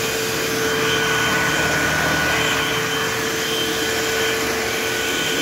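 Eureka Multi-Cyclonic AirSpeed AS1101 vacuum cleaner running steadily: a constant rush of air with a steady motor whine.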